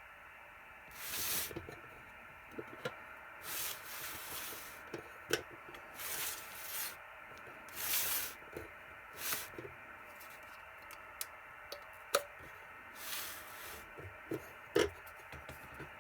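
Hands handling things: about half a dozen short rubbing or rasping sounds, each about half a second long, mixed with scattered sharp clicks and knocks.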